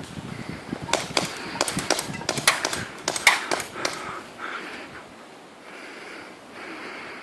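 Airsoft guns firing: a rapid, irregular run of sharp clicks and snaps starting about a second in and lasting about three seconds.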